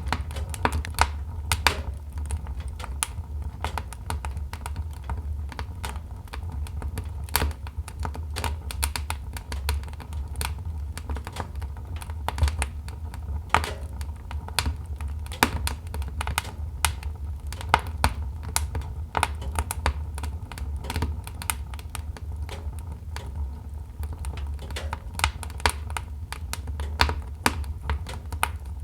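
Wood fire burning in a fireplace: irregular sharp crackles and pops from the logs, several a second, over a steady low rumble of the flames.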